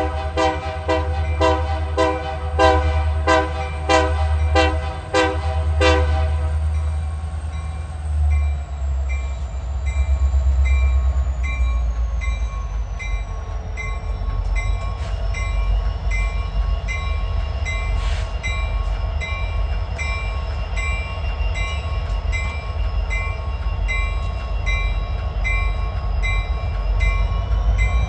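EMD SD60M diesel locomotive's air horn sounds a long chord for about the first six seconds and then stops. The train's diesel engines and cars rumble past steadily, while a bell rings about twice a second.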